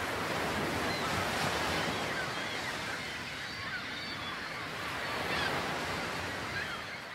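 Ocean surf breaking and washing up the beach as a steady rush, swelling a little about five seconds in.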